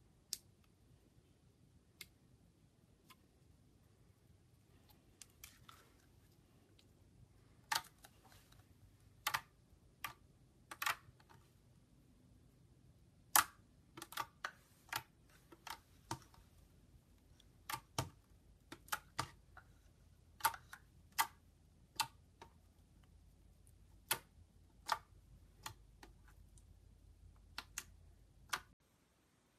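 Clear slime being squeezed and poked by hand, giving irregular sharp clicking pops, sometimes several close together, over a faint low hum. The sound cuts off shortly before the end.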